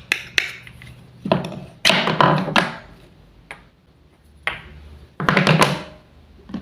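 Wooden toy fruit and vegetable pieces being cut and handled: light wooden taps and knocks, with two longer scratchy noises about two and five seconds in.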